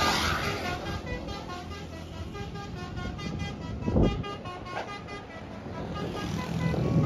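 Bus-mounted basuri 'telolet' musical horn playing a tune of short stepped notes, getting fainter over the first couple of seconds, over road traffic. A thump about four seconds in, and a vehicle grows louder near the end.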